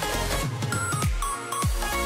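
Background electronic music with a steady beat, its deep bass notes sliding down in pitch on each beat.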